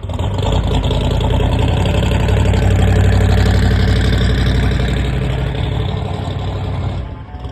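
A loud car engine rumbling, growing louder over the first three seconds and then fading away near the end.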